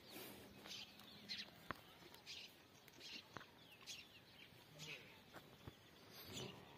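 Faint bird calls: short chirps repeated every half second or so, with a few sharp clicks.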